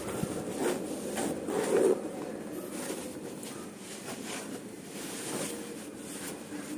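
Handling of a packed backpack: a few short knocks and rustles in the first two seconds, then quieter rustling.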